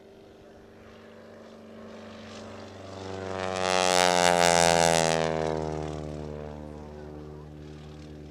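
A propeller-driven aerobatic biplane makes a low pass. The engine and propeller grow louder to a peak about four seconds in, the pitch drops as it goes by, and then the sound fades.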